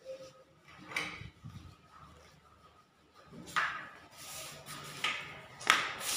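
Intermittent knocks and scrapes from plastering tools and materials being handled during skim-coat work, loudest near the end.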